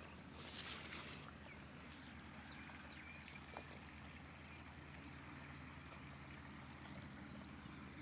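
Faint outdoor field ambience: a steady low hum, a brief rustle about half a second in, and a few short high chirps later on.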